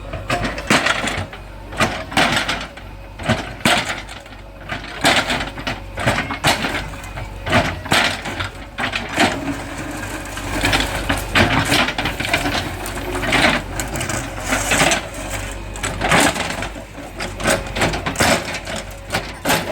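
JCB 3DX backhoe loader demolishing masonry: its diesel engine runs steadily under repeated irregular crashes and clatter of breaking and falling brick and rubble, about one a second.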